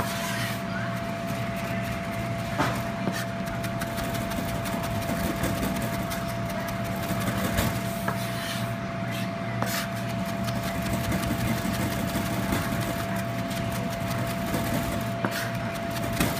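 Chef's knife fine-chopping jalapeño on a plastic cutting board: a fast, steady run of knife taps against the board, over a steady low hum.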